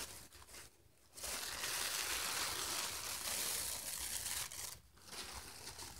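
Thin paper napkin rustling as its plies are peeled apart by hand: a soft, papery hiss starting about a second in and lasting about three and a half seconds, then fainter handling near the end.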